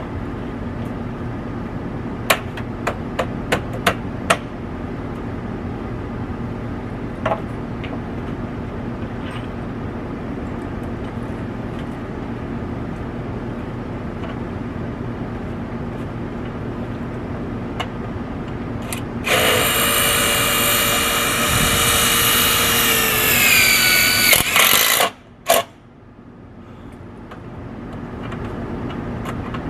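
Cordless drill running under load for about five seconds near the end, its whine falling in pitch just before it stops, over a steady low hum. A few sharp clicks come about three seconds in.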